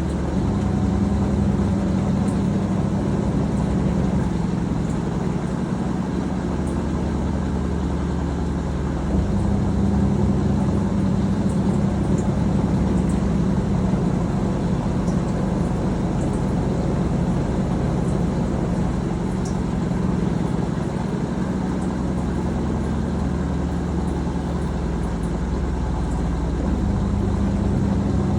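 A Teco TWM100TAB top-load agitator washing machine running mid-cycle: a steady low motor hum that shifts in pitch and level a few times.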